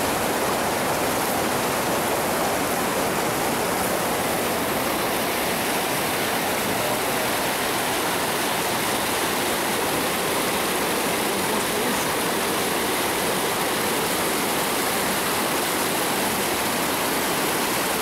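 Fast mountain stream rushing over rocks and small cascades, a loud, steady roar of water.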